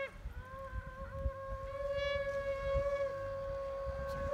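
Shofar (ram's horn) blown in one long, steady, held note.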